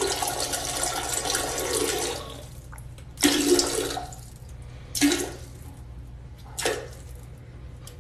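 Toilet flushing: a steady rush of water that stops about two seconds in, followed by three shorter surges of rushing water a second or two apart.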